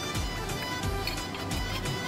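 Background music with held tones and a regular low beat.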